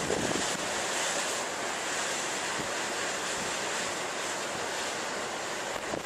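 Ocean surf: a steady rushing wash of waves, with wind.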